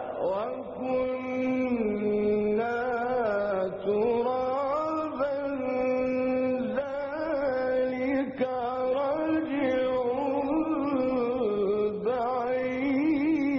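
A male Quran reciter chanting in the melodic mujawwad style. He draws out long, ornamented phrases whose held notes waver and glide up and down in pitch.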